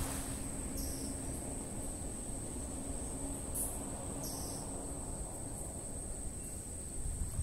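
Steady high-pitched insect trilling, with short chirps every few seconds and a low rumble underneath.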